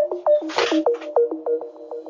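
Electronic background music: a quick repeating pattern of short plucked synth notes, with a brief burst of hiss about half a second in.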